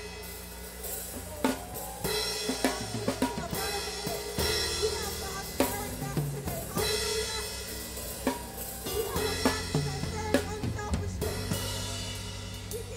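Church band music led by a drum kit, with snare, bass drum and cymbal hits over held bass notes.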